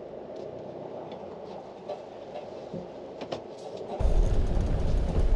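Toyota Hiace 4x4 van crawling over rocky ground, heard inside the cab: its engine runs with a steady hum, broken by a few sharp creaks and knocks from the body and suspension. About four seconds in, the sound switches to the outside, where a loud wind rumble on the microphone covers the engine.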